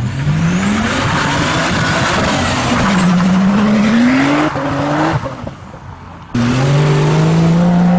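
Nissan Skyline R34 accelerating hard up a steep hill climb, its engine revving up, dipping at a gear change about three seconds in, revving again and then fading away. About six seconds in, another car's engine abruptly takes over, its note rising slowly as it pulls away.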